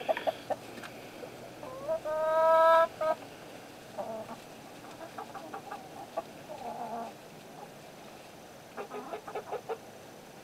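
Backyard chickens clucking in short quick runs. About two seconds in, one bird gives a single loud drawn-out call lasting about a second.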